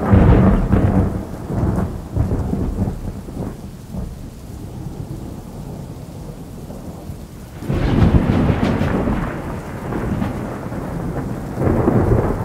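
Thunderstorm: rolling thunder over steady rain. A rumble dies away over the first couple of seconds, a fresh peal breaks about eight seconds in, and another comes near the end.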